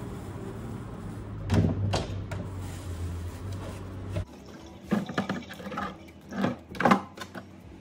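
Plastic bag of red peppers rustled and handled over a steady low hum, with a few knocks as peppers are set down. After an abrupt cut about four seconds in, a knife cuts the peppers on a plastic chopping board in a handful of separate knocks.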